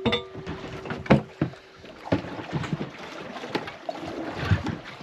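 Irregular knocks and thuds aboard a small fishing boat, with a ringing tone that fades out about two seconds in.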